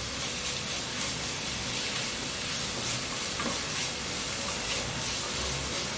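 Chopped onion, green chillies and ginger-garlic paste sizzling steadily in hot oil in a non-stick pan, stirred with a wooden spatula scraping across the pan.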